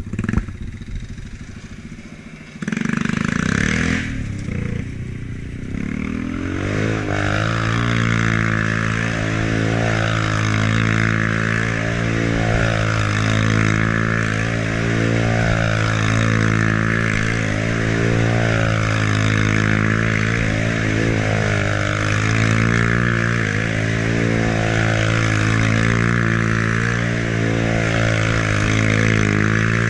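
ATV engine revving up about three seconds in, then held at high, steady revs as the quad spins donuts in dry dirt. The sound swells and dips about every two seconds as the machine circles.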